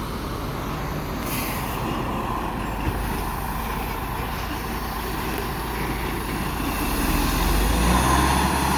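Road traffic going by, with a big truck's low engine rumble building louder over the last couple of seconds as it approaches.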